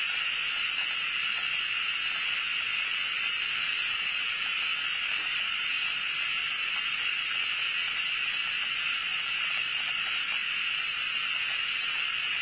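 A steady, even hiss that does not change, strongest in the upper-middle range.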